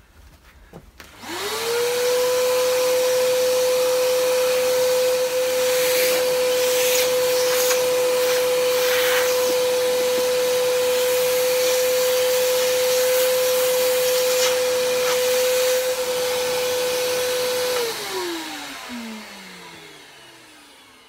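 Vacuum cleaner switched on about a second in, running with a steady whine as it picks up loose bits of wire wool. It is switched off near the end and winds down with a falling pitch.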